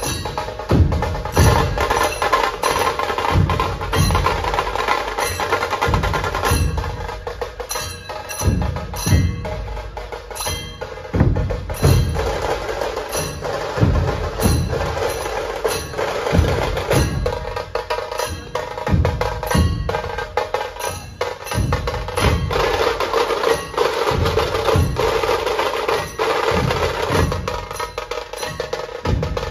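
A Maharashtrian dhol pathak, many large barrel dhols beaten together in a loud, driving rhythm: deep bass strokes with sharp stick cracks on top.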